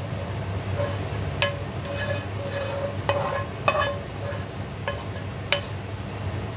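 A metal utensil clinking and scraping against a pan and plate as cooked shrimp is served out, about six sharp ringing knocks, over a steady low hum.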